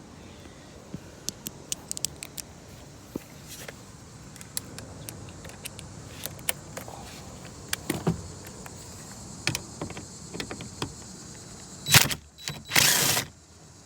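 Scattered light clicks and ticks of a socket wrench and metal and plastic door parts being worked while the inside door handle's screw is undone. Near the end come a loud knock and then about half a second of rattling as the part comes loose.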